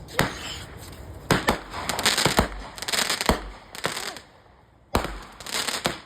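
Fireworks going off: a string of sharp bangs, several close together in the first three and a half seconds, with crackling between them, then a short lull and one more bang about five seconds in.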